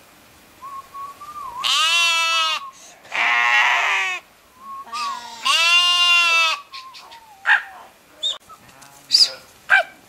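Sheep bleating: two loud, drawn-out bleats about four seconds apart with a rougher one between them and fainter bleats around them, then a few short sharp sounds near the end.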